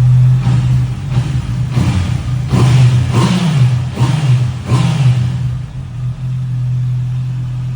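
Honda CB650F's inline-four engine on its stock exhaust, idling and then blipped several times in quick succession, each rev rising and dropping back, before settling to a steady idle for the last couple of seconds.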